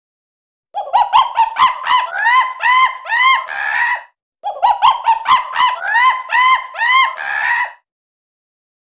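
Monkey calls: a run of about ten short hooting calls, each rising and falling in pitch, coming faster and ending in a longer, harsher note. The same run plays twice with a short gap between.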